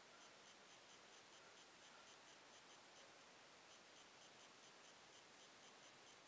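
Near silence: room tone with a steady hiss and a faint, fast, regular ticking.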